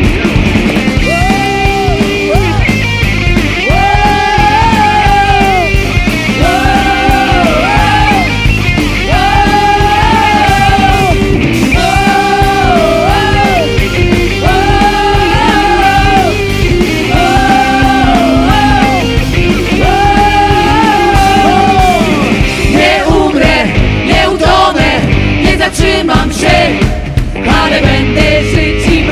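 Worship band playing a loud rock-style song. A lead melody line in repeated gliding phrases rides over the full band, then gives way to heavier drum-driven playing about 22 seconds in.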